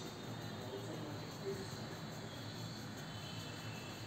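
Coloured pencil scratching on paper as squares of a printed grid are filled in, a soft, even scribbling.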